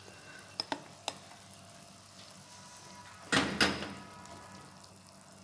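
Masala and boiled split chickpeas sizzling softly in a nonstick frying pan, with a few light clicks in the first second. A little past halfway a spatula stirs and scrapes through the pan in a short, louder burst.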